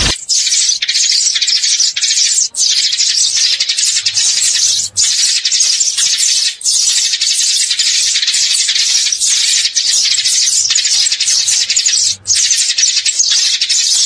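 A flock of Eurasian tree sparrows chirping over one another in a dense, continuous chatter, with a few brief breaks.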